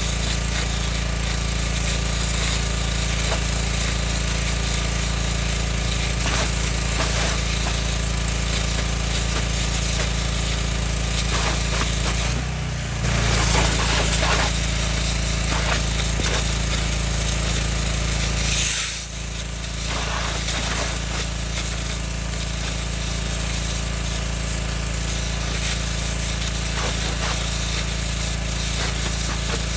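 Gas-engine Northstar 4000 PSI pressure washer running steadily while its high-pressure water jet hisses into the soil and tree roots. The sound shifts briefly twice, about 12 and 19 seconds in.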